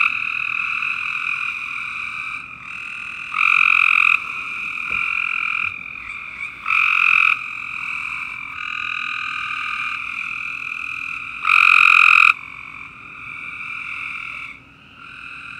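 Frogs calling in a chorus after rain, with one close, loud frog giving a short call of under a second four times over the steady calling of others.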